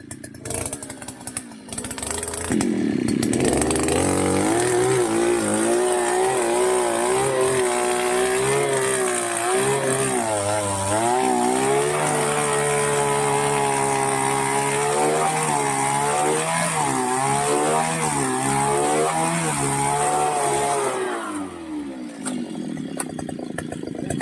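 Small petrol engine of a powered earth auger picking up speed and running under load as it bores a hole in the ground. Its pitch wavers as the bit bites, and it eases off about three seconds before the end.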